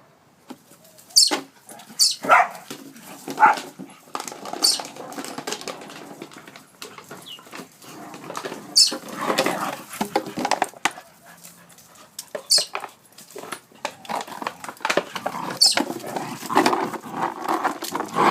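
Dogs playing, with short sharp barks now and then and rougher noisy sounds between them.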